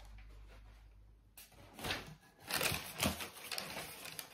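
Fabric and paper wrapping rustling and crinkling as garments are handled and lifted out of a box, in a run of irregular scratchy bursts starting about a second and a half in.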